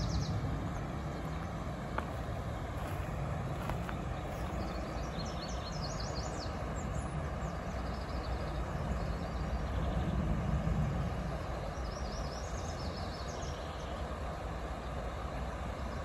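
Steady rush of a shallow river running fast over rocky riffles, with small birds chirping now and then. A low rumble underneath swells near the start and again about ten seconds in.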